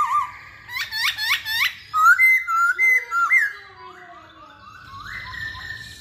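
Masked laughingthrush singing: a wavering whistle, then a run of four quick upswept notes and a phrase of loud clear whistles, trailing off to softer calls for the last couple of seconds.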